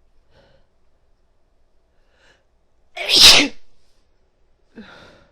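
A woman sneezes once, loudly and suddenly, about three seconds in, after a couple of faint breaths. A softer short breathy vocal sound follows near the end.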